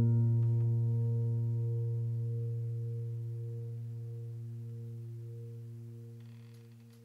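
The last low note of closing piano music ringing on and slowly dying away.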